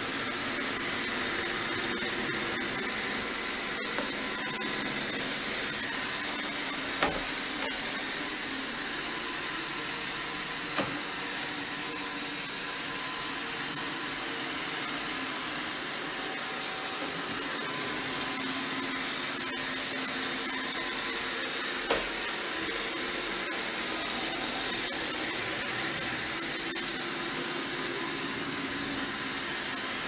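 iRobot Roomba 605 robot vacuum running on a hard laminate floor: a steady whir of its suction motor and brushes, with a few sharp knocks scattered through.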